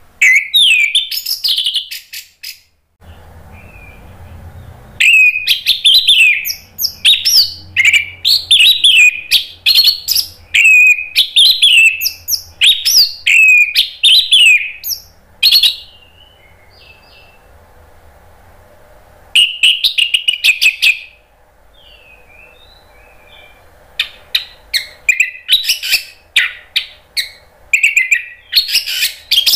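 Orange-headed thrush singing loud, rapid phrases of sweeping whistled and chattering notes, in several bouts separated by pauses of a few seconds: the full, open 'ngeplong' song.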